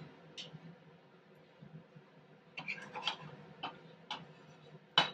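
Melted ghee frying under bread toast in a hot nonstick pan, giving sparse small crackles and pops, a little cluster of them in the middle and the sharpest click just before the end.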